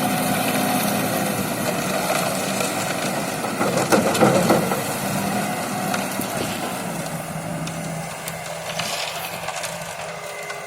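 Engine of a self-loading concrete mixer running steadily, with a burst of rattling and scraping about four seconds in. The sound grows gradually quieter toward the end.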